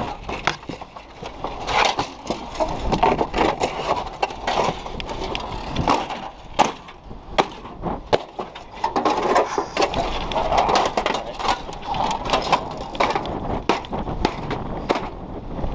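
Irregular knocks, clatter and scraping, many sharp hits a second apart or less, as loose parts of a wind-wrecked travel trailer's body are pushed and tucked into it by hand.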